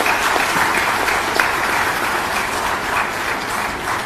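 Audience applauding, a dense steady round of clapping that eases slightly toward the end.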